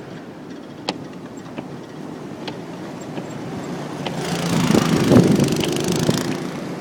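A motor vehicle passing close by: its sound builds about four seconds in, peaks and fades away over about two seconds, over a steady low rumble with a few faint clicks.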